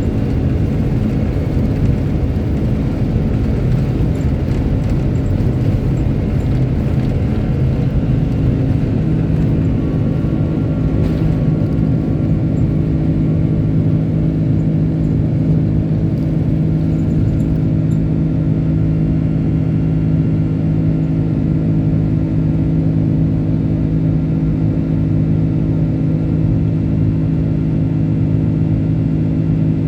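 Airbus A330-300's Rolls-Royce Trent 700 engines running, heard inside the cabin as a loud, steady rumble with a low hum. The hum grows stronger about nine seconds in.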